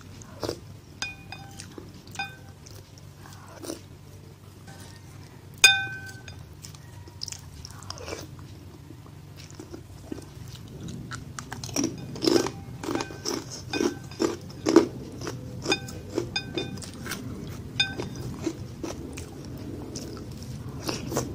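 Close-up eating sounds: mouth-chewing of instant noodles and boiled egg, with a wooden spoon and fork clinking against a ceramic bowl several times, the loudest clink about six seconds in. The eating noises grow busier in the middle.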